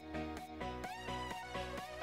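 Background music: electronic music with a steady beat.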